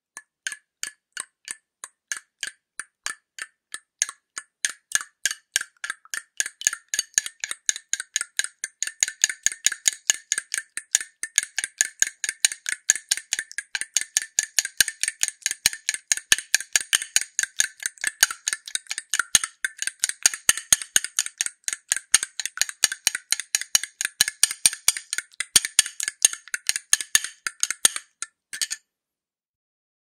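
Eggs rattled together, their shells clicking against each other. The clicks come a few at a time at first, then quicken into a fast, busy clatter from about four seconds in, and stop shortly before the end.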